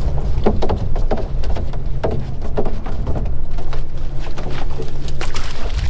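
A boat engine running steadily at idle, under a run of knocks, scrapes and clatters from a plastic bait barrel being handled and tipped over the rail to free a trapped great black-backed gull.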